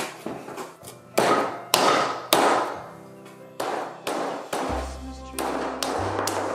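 Background music with a bass line coming in near the end, over a run of thuds and taps from bread dough being punched and kneaded by hand in a ceramic bowl, a few of them sharp and loud in the first half.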